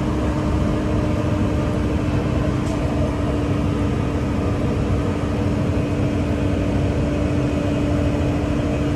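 Safari tour tram's engine running steadily as it drives uphill, a constant low hum with a steady drone.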